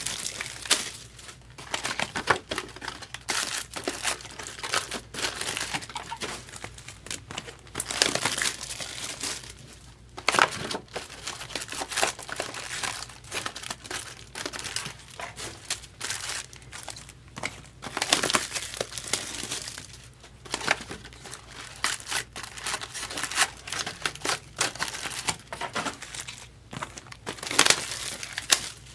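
Foil wrappers of 2024 Topps Chrome Cosmic trading-card packs being torn open and crinkled one after another: steady irregular crackling, with louder crackling rips every few seconds.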